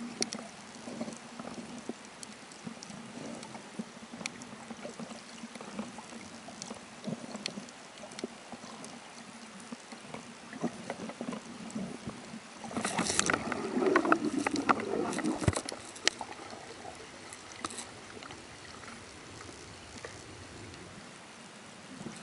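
Muffled underwater water noise picked up by a camera just below the sea surface: a steady low wash with scattered small clicks and crackles. A louder rush of bubbling and sloshing water runs from about 13 to 15.5 seconds in.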